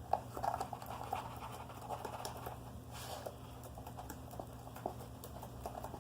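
Soft, irregular clicks and taps of a red marker tip being dabbed and rubbed on slime, over a steady low hum.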